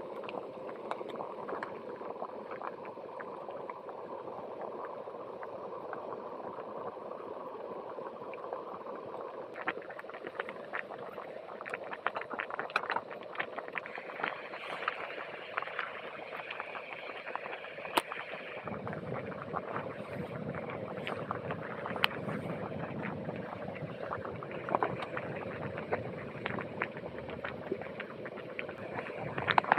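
Jetboil Minimo gas canister stove burning under a pot of boiling water: a steady rushing burner noise with bubbling and scattered sharp clicks. A deeper rumble joins a little past halfway.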